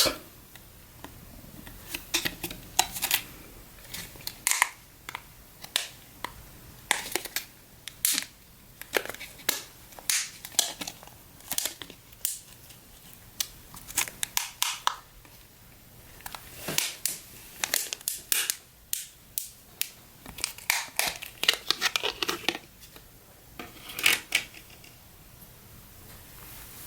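Irregular short clicks and rustles of hands handling small parts: the laptop's 8 GB DDR3 memory sticks being readied for installation.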